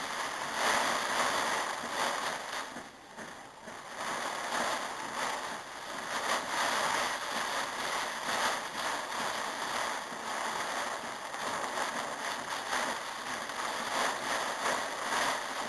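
Heavy storm rain pouring down, a steady rushing hiss of falling and splashing water that dips briefly about three seconds in.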